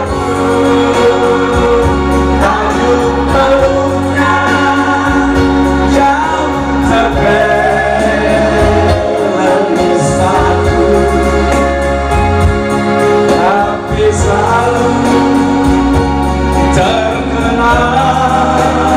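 Live amplified singing over an electronic keyboard, a man's voice holding long notes above a steady bass line.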